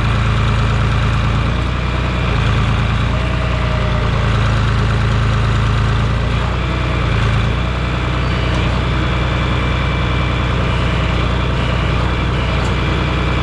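Heavy farm-machine engine running steadily with a low hum, easing slightly about seven and a half seconds in.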